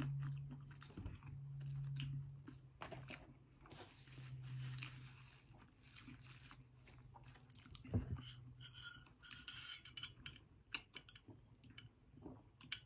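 Close-up mouth sounds of someone chewing a soft brioche-bun burger: wet smacks and small crackles, with a low steady hum twice in the first five seconds and one firmer knock about eight seconds in. Near the end comes sipping through a straw from a plastic cup.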